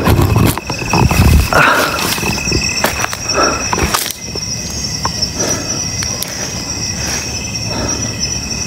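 Night insects chirring steadily at a high pitch. Loud rustling and knocks of handling sound over them for the first two seconds, then die down.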